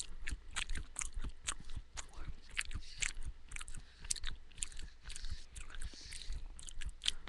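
A person chewing a mouthful of crunchy homemade granola (oats, almonds and sunflower seeds) close to the microphone, a run of irregular small crunches.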